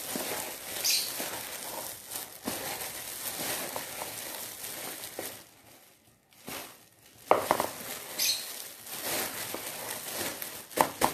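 Clear plastic glove crinkling as a hand squeezes and mixes cooked rice with chopped chicken in a bowl. It stops briefly about halfway through, then starts again with a few sharper knocks against the bowl.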